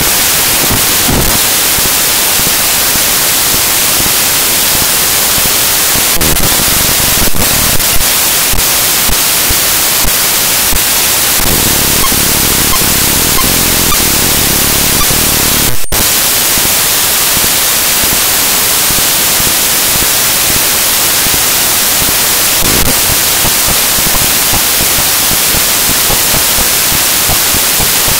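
Loud, steady static hiss with no speech, typical of a faulty or disconnected audio feed in the recording. It is broken by a few faint clicks and one brief dropout about sixteen seconds in.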